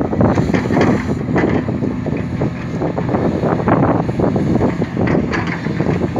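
Hitachi Zaxis 490 LCH excavator working: its diesel engine runs steadily under load, with irregular knocks and scrapes throughout from the digging.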